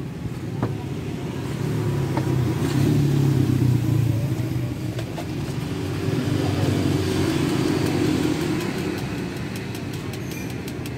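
A motor vehicle engine running close by, with a steady low hum that grows louder about two to five seconds in and again around seven seconds, as if vehicles are passing.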